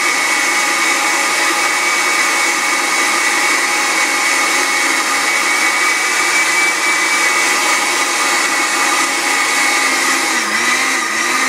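Countertop blender running steadily, churning milk, vanilla ice cream and strawberries into a milkshake: a steady motor whine over the rush of the liquid. Near the end its pitch dips and recovers twice.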